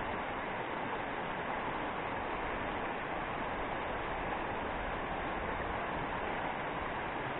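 Fast, rocky river rushing through rapids: a steady, even rush of water that never breaks or changes.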